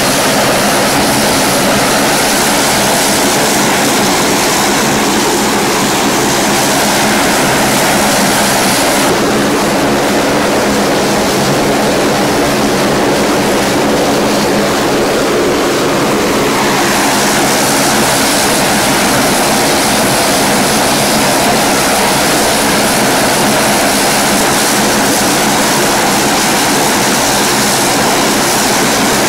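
Saab 340 twin turboprop engines running steadily as the airliner taxis, with an even propeller drone. The sound turns duller for about eight seconds in the middle.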